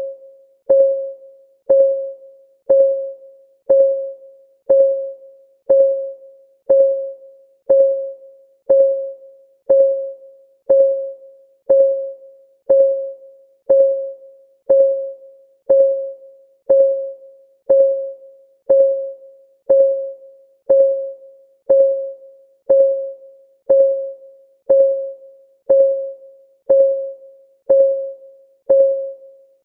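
Countdown timer's clock-ticking sound effect: one tick a second, each a short, clear, pitched tick that dies away quickly.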